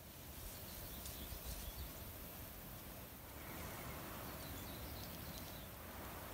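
Outdoor nature ambience: a steady hiss of background noise with faint high-pitched animal chirps scattered through it, and a short run of quick, evenly spaced chirps about halfway through.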